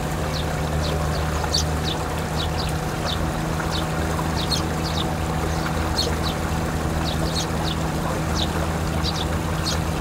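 Paddy water flowing and trickling, over the steady hum of a far-off farm machine's engine, with small birds giving many short falling chirps throughout.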